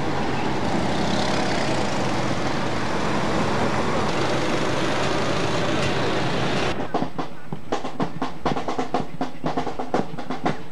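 A steady, dense wash of noise from passing parade floats. About two-thirds of the way through, it cuts abruptly to a marching band's drumline playing a fast run of sharp snare and bass drum strikes.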